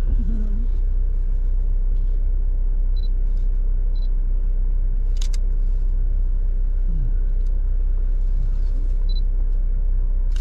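Jeep driving slowly on a dirt trail, heard from inside the cab: a steady low rumble of engine and tyres. A sharp click comes about five seconds in, with a few faint short high tones here and there.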